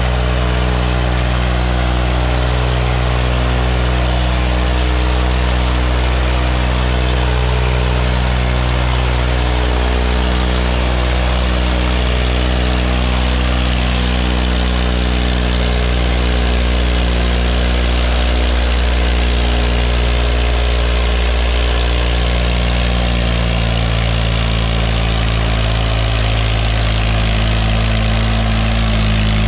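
Swaraj 855 FE tractor's three-cylinder diesel engine running steadily under load while dragging two disc harrows through the soil. Late on, its note rises slightly and then holds.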